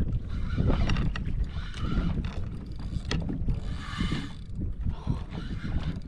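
Wind rumbling on the microphone and water sloshing against a kayak on open ocean, with scattered sharp clicks and a brief hiss about four seconds in.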